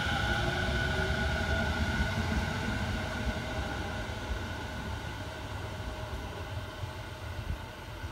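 JR 209 series electric commuter train pulling away along the track. Its steady motor whine and low wheel rumble fade as it recedes.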